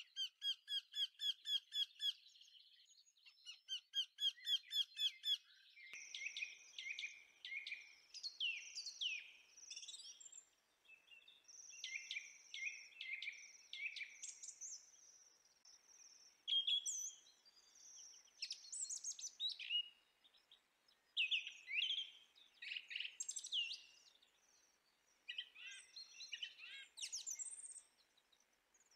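Songbirds chirping and singing: fast trills of quickly repeated notes for the first few seconds, then a varied run of high whistles and chirps broken by short gaps.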